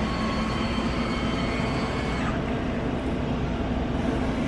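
Pizza vending machine's internal mechanism running with a steady hum as it delivers a boxed pizza to the dispensing slot. A thin, several-toned whine stops about two seconds in.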